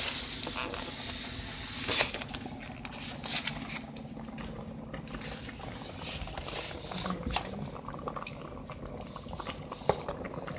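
Pot of okra soup bubbling on the stove, with a loud hiss for the first two seconds, then a quieter bubbling broken by scattered small knocks.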